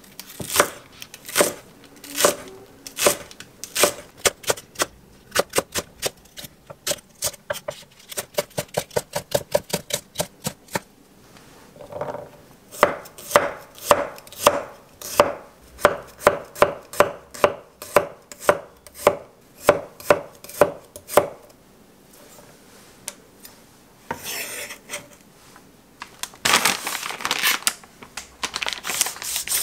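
Wide-bladed kitchen knife chopping green onion and garlic on an end-grain wooden cutting board: a series of sharp knocks of the blade on the wood, in quick runs of several strokes a second. About three seconds before the end, a dense crinkling of plastic food packaging takes over.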